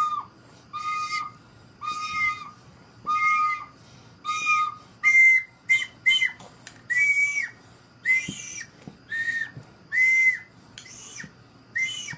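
Orange plastic toy horn blown in short toots, about one a second. About five seconds in, the toots jump to a higher pitch.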